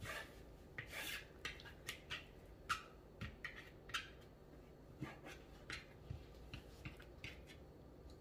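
Chef's knife slicing raw chicken breast into strips on a plastic cutting board: short, irregular scraping strokes of the blade against the board, about two a second.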